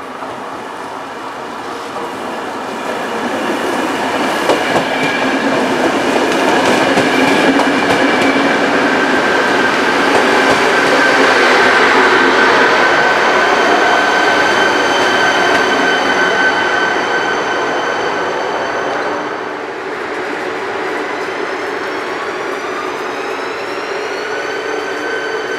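ČD class 471 CityElefant double-deck electric multiple unit running past close by, with wheels on the rails and a steady electric whine from its traction equipment. The sound swells to its loudest as the train passes about halfway through. Near the end a set of whining tones rises in pitch and then levels off.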